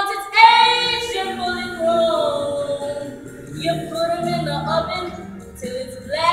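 A woman singing without accompaniment, holding drawn-out notes that slide up and down in pitch.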